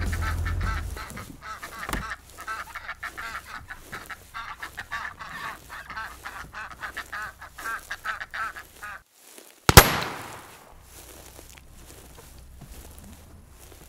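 Waterfowl honking and quacking in quick, repeated calls, then a single loud gunshot about ten seconds in, with a short echoing tail.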